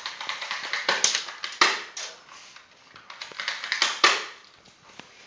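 Airsoft guns firing indoors, with BBs hitting walls and furniture: an uneven run of sharp clicks and short pops. The loudest pops come about one, one and a half, two and four seconds in.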